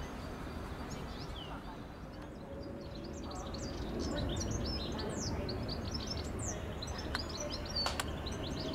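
Small birds chirping in quick, high, short notes, growing busy about three seconds in, over a steady low background rumble, with one sharp click near the end.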